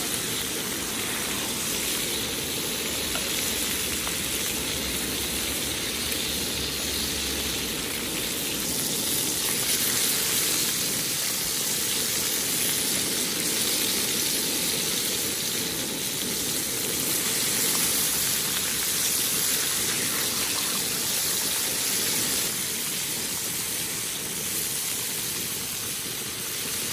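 Thick beef steaks sizzling steadily in a hot frying pan.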